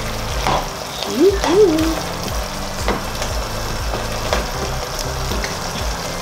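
Pork and liver stew in a thick soy-ketchup sauce bubbling and sizzling in a pot as it cooks down, stirred with a spatula that scrapes and taps against the pot. About a second in, a short two-note rising tone stands out as the loudest sound.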